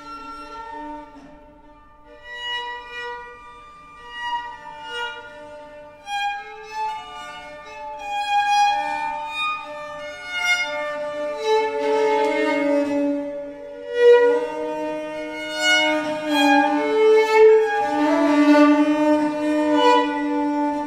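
Baroque violin and viola da gamba playing together: a bowed violin melody over a steady, held low note. The music starts soft and grows louder about a third of the way in.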